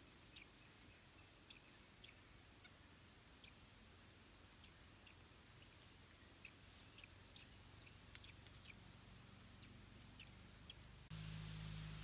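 Near silence: faint background with scattered short, high ticks or chirps. A steady low hum comes in suddenly about a second before the end.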